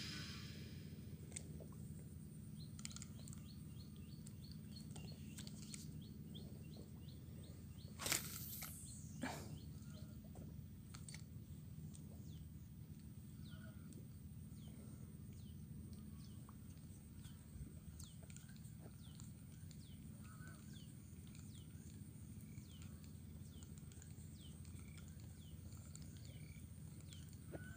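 Quiet open-air ambience at the water's edge: faint, repeated high bird chirps over a low steady hum. About eight seconds in there is one brief whoosh, followed a second later by a smaller sound.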